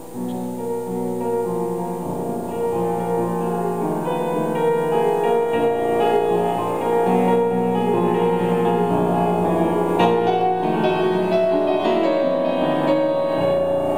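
Grand piano played solo: held chords that grow louder over the first few seconds, with quicker repeated notes reaching higher from about ten seconds in.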